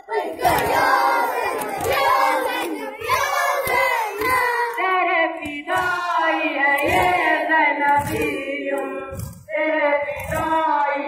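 Many children's voices chanting an Urdu noha, a Muharram lament, in unison. Dull hand thumps on the chest come about once a second and keep time: matam.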